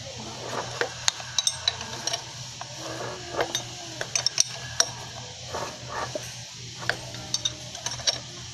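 Scattered light metallic clinks and ticks of a 17 mm wrench on the crankshaft bolt as a Suzuki 12-valve engine is turned over by hand, irregular and unevenly spaced, over a steady low hum.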